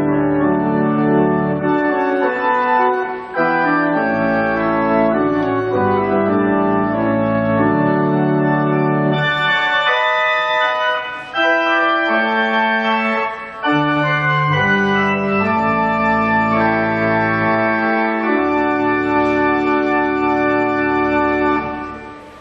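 Organ playing a slow piece in sustained chords, the final chord dying away near the end.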